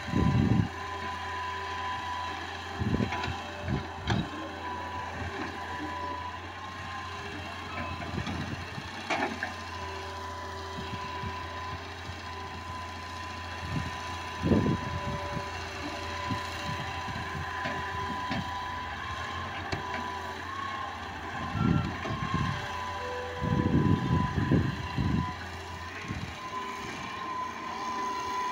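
Hitachi tracked excavator running as it works, a steady engine hum with a high whine, broken by irregular low thumps, the heaviest about three quarters of the way through.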